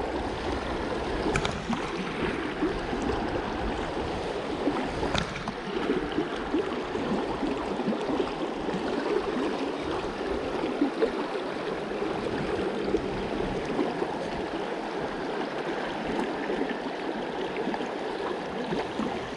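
Shallow mountain river running fast over rocks close by, a steady rush of water.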